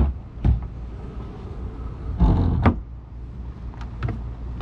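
Footsteps and knocks of a person moving across a sailing yacht's teak deck and stepping down onto the swim platform: a sharp knock about half a second in and a heavier thud a little past two seconds, over a steady low rumble.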